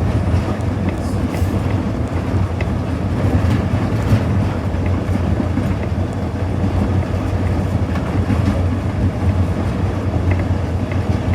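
Cab interior of an EMD SD40-2 diesel-electric locomotive running under power: steady low drone of its 16-cylinder two-stroke diesel, with scattered clicks from the wheels on the rails.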